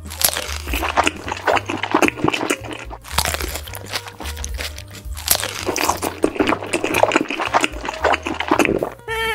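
Crisp crunching and chewing sound effects, like bites into crunchy food, in several long bursts with short breaks, over soft background music with a low bass line.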